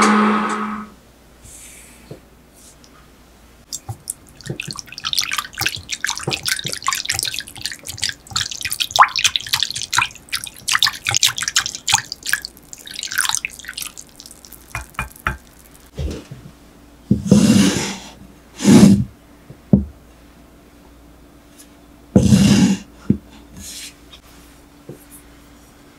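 A microwave oven's hum cuts off about a second in. Then a wire whisk clicks and scrapes rapidly against a glass bowl of hot coffee for about ten seconds, followed by three dull knocks.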